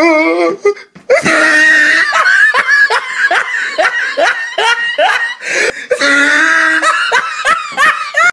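A person laughing hard and loudly in a long run of quick bursts, with a short break about a second in.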